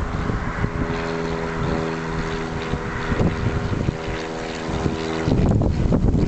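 Locomotive air horn sounding one long, steady multi-note chord of about four and a half seconds, then cutting off suddenly near the end. Wind buffets the microphone throughout and grows louder once the horn stops.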